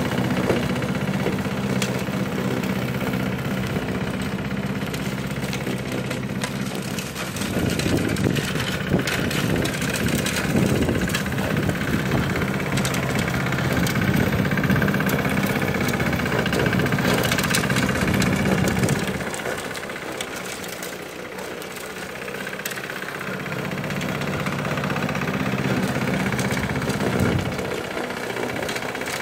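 Small petrol engine of a driverless lawn mower running steadily as the mower drives across the grass. It drops in loudness for a few seconds about two-thirds of the way through, then comes back up.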